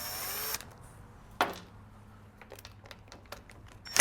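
Small clicks and knocks of hand tools and plastic parts being handled while a string trimmer is taken apart. A brief hiss stops about half a second in, with a sharper click near the end.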